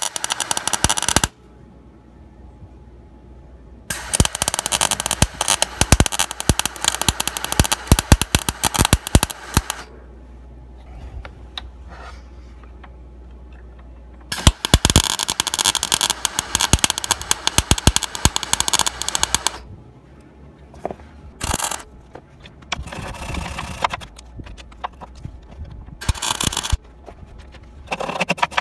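MIG welder welding thin sheet steel, a dense crackling, sputtering buzz: a short burst at the start, two long runs of five to six seconds each, then several short tacks near the end, with quiet gaps between. The welder suspects he should have used a little more heat or wire speed.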